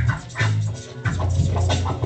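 DJ scratching a vinyl record by hand on a turntable over a backing beat with a deep bass, the mixer's fader chopping the sound in and out. Short rising and falling scratch sweeps break in and out several times.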